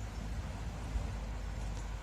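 Steady low rumble with a faint hiss of background noise, and a soft low bump about a second in.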